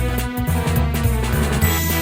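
Instrumental music with a steady bass line and sustained keyboard-like chords.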